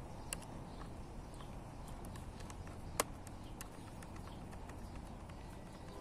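Small metallic clicks of a small flathead screwdriver working the keyboard-retaining screws on the underside of a ThinkPad T430 laptop. The sharpest click comes about halfway through, and a steady low background noise runs underneath.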